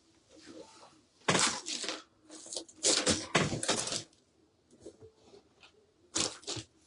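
Crackling, rustling bursts of artificial flowers and greenery being handled and repositioned, in three spells: about a second in, a longer stretch from about two to four seconds, and again near the end.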